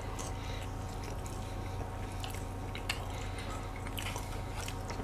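Quiet chewing of soft cream-and-cookie cake, with a few faint clicks of a fork and spoon against plastic dessert cups, over a steady low hum.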